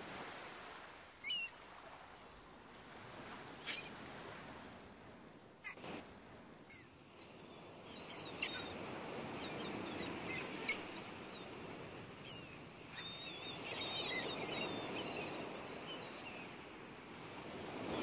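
Seaside ambience: waves washing in and out as a rising and falling hiss, with scattered short, high bird calls, more of them in the second half.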